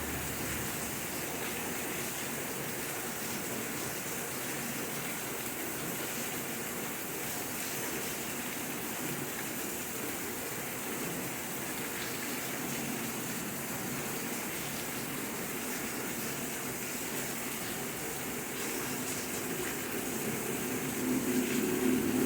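Steady rainfall, an even hiss of rain with no let-up. Near the end a lower rumble begins to swell and grow louder.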